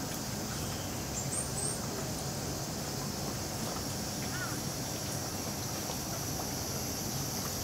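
Steady high-pitched drone of insects in the zoo's greenery, with a faint murmur of voices and a low hum underneath, and two brief high bird chirps about a second and a half in.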